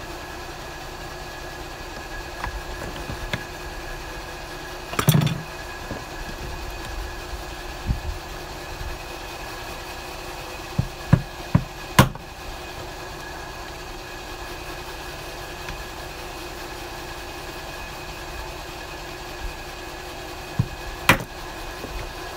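Sharp knocks and taps of hand tools on a sealed plastic Mikuni lawn mower fuel pump as it is forced open. They come scattered: a few about five seconds in, then a quick run of four around the middle, the last of these the loudest, and one more near the end. A steady mechanical hum runs underneath.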